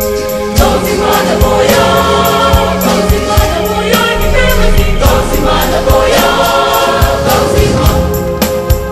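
Background music with choir-like singing voices over a steady beat.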